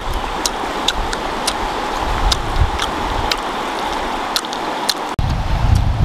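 Steady rushing of a river flowing over stones, with scattered sharp clicks. It breaks off abruptly about five seconds in, and a low rumble comes in after.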